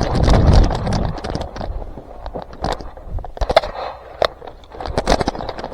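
Scattered sharp clicks and crackles at an irregular pace, with a louder rustling noise in the first second that fades.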